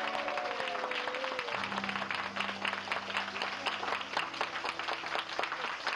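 A small group applauding, many hands clapping steadily, with background music holding long notes underneath.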